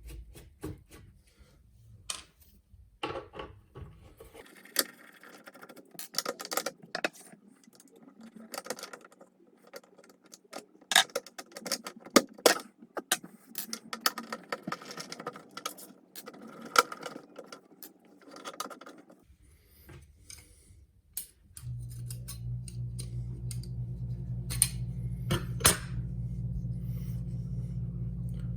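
Metal parts of a door handle and lock clicking, clinking and scraping as the mechanism is worked apart by hand, in irregular ticks and knocks. About two-thirds of the way in, a steady low machine hum starts and carries on under the clicks.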